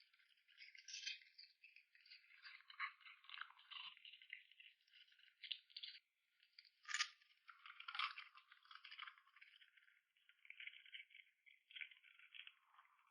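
A dog eating dry food from a bowl: faint, irregular crunching and rattling of the pieces, with a few sharper clicks.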